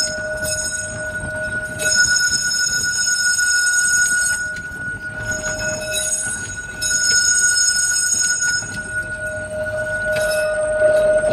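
Open-topped Blackpool boat tram rolling round a tight curve, its steel wheels squealing against the rail in steady high tones that fade and come back, over the low rumble of the running gear.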